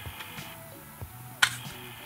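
Sharp plastic clicks from a smoke detector's housing latches being pried loose to free its circuit board, the loudest a single snap about one and a half seconds in, over quiet background music.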